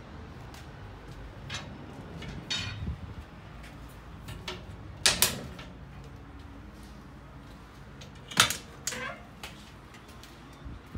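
Metal clicks and clanks of a horse trailer's aluminum stall gates, bars and latches being handled by hand: scattered knocks, the loudest a quick pair about five seconds in and another sharp one about eight and a half seconds in.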